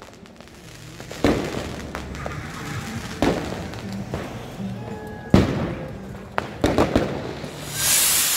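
Firecrackers going off around the street: about six sharp bangs, the loudest about five seconds in. Near the end a ground fountain firework catches and hisses loudly as it sprays sparks.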